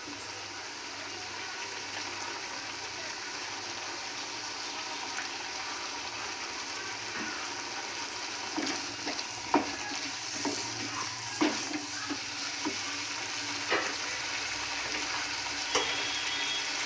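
Mixed-vegetable curry with coconut paste and coconut oil sizzling steadily in a kadai, with a spoon stirring and knocking against the pan a few times in the second half.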